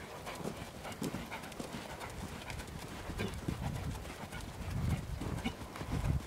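Welsh cob's hoofbeats in a steady trot on soft dirt, a regular run of dull thuds that grows heavier near the end as the horse passes close.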